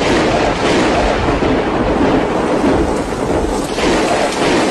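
Heavy hail falling on clay tile roofs: a loud, continuous roar of countless impacts.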